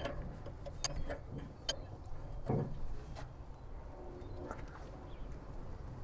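A few faint sharp metal clicks and one soft knock as a wrench works loose the pressure relief valve on a boom lift's hydraulic control valve block.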